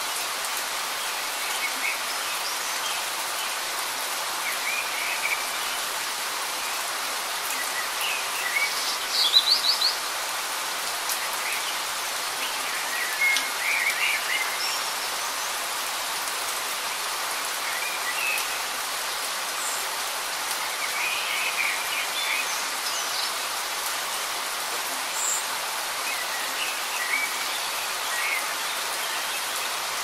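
Light rain falling steadily in woodland, an even hiss. Birds chirp now and then over it, the loudest a quick run of high chirps about nine seconds in.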